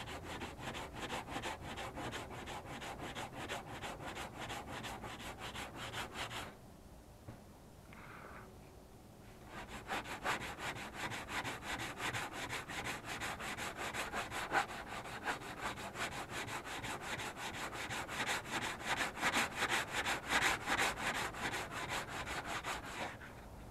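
Hand sanding cured polyester body filler on a car's sheet-metal front fender with coarse 80-grit aluminium oxide sandpaper held flat under the palm, in rapid back-and-forth strokes. This is the rough cut-down of filler that was laid on too thick. The sanding stops for about three seconds a quarter of the way in, then runs on until just before the end.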